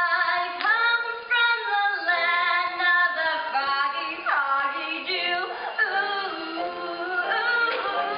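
A woman singing a song from a stage musical, with the pit orchestra accompanying.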